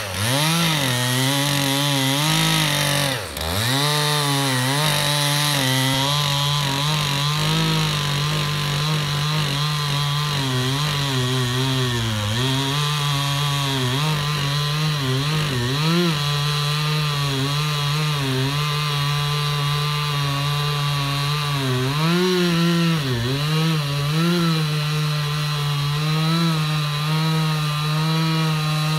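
Stihl MS 362 two-stroke chainsaw with a 28-inch bar running at full throttle as it cuts through a log, its pitch wavering with the load. The engine speed dips sharply at the start and again about three seconds in, then picks back up.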